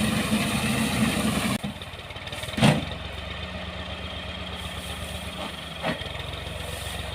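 Engine of wheat-harvest farm machinery running. About one and a half seconds in, the sound drops suddenly to a quieter, steady idle. A sharp knock comes shortly after, and a lighter one near the end.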